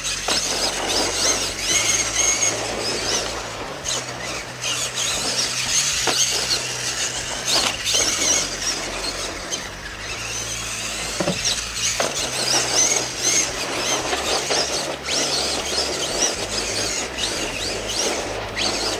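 Electric RC monster truck motor whining, its pitch rising and falling again and again as the truck accelerates and lets off during a freestyle run. A few sharp knocks are mixed in, typical of the truck landing from jumps.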